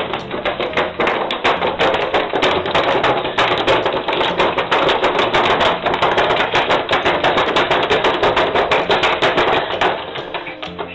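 Rapid, dense tapping and clattering, many strikes a second, over music with a low bass line; the tapping fades out near the end as the music carries on.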